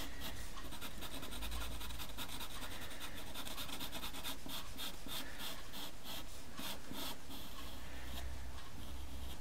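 Dark brown pastel pencil scratching on textured pastel paper in many short, quick strokes as a tree trunk is drawn, easing off near the end.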